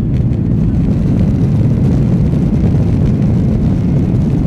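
Inside the cabin of a Boeing 737-800: a steady, low noise from the CFM56-7B engines and the airframe as the jet rolls slowly on the ground.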